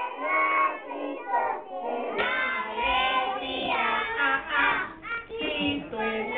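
A group of preschool children singing a Christmas chorus together.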